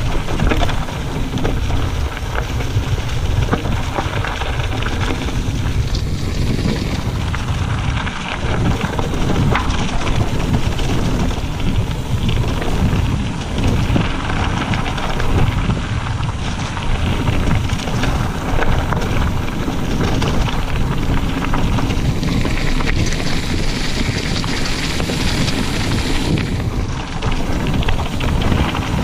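Mountain bike running fast downhill over a gravel track strewn with dry leaves: a steady rush of wind buffeting the microphone and tyre noise, with constant small knocks and rattles as the bike bounces over the rough ground.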